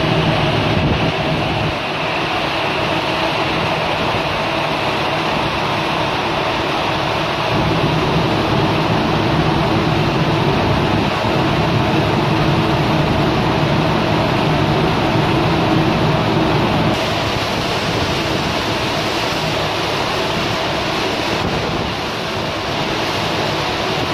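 Steady wind buffeting the microphone over rushing sea, with a low hum underneath. The mix shifts slightly twice, about a third and two thirds of the way through.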